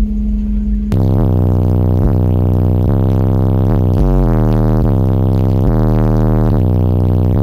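Bass-heavy electronic music played loud through a car audio system of four Resilient Sounds Platinum 15-inch subwoofers. The full bass line comes in about a second in, with deep sustained notes changing roughly once a second.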